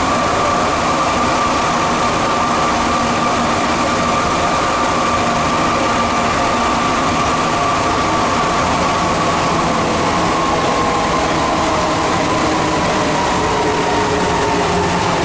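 Santiago Metro Line 2 rubber-tyred train running between stations, heard from inside the car: a steady rolling rumble with a traction-motor whine. The whine falls slowly in pitch over the second half as the train slows.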